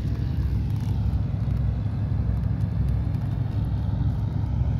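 Steady low rumble of inline-skate wheels rolling over the pier's concrete, mixed with wind buffeting the microphone.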